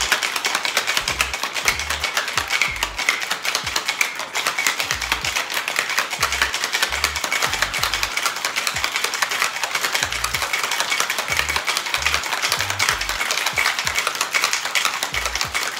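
Ice rattling hard and fast inside a metal cocktail shaker tin, shaken vigorously and without a break to chill a cocktail. Background music plays underneath.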